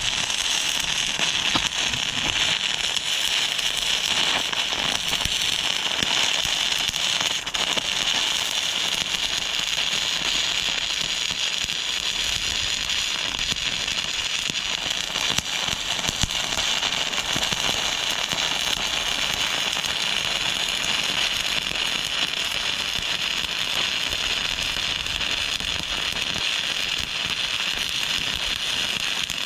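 Stick welding arc burning steadily, a continuous crackle and sizzle as weld is laid into a wide beveled gap to build it up.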